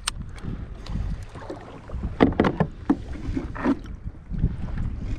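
Wind buffeting the microphone on a sit-on-top kayak, with a sharp click at the start and a few short knocks and splashes about two seconds in and again near four seconds, as a small thornback ray is hauled from the water onto the plastic deck and handled.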